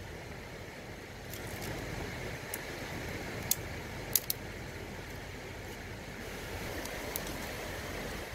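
Dry twigs being handled and stacked, giving a few small sharp clicks and snaps over a steady outdoor hiss.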